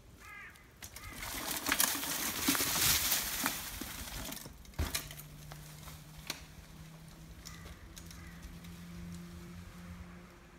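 Mountain bike rolling down a steep dirt drop and along a trail covered in dry leaves: a rush of tyres over leaves and earth with the bike's rattle, loudest about two to four seconds in, and a sharp knock about five seconds in.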